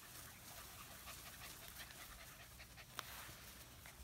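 Faint panting and scuffling of young Pyredoodle puppies romping in grass, with one sharp click about three seconds in.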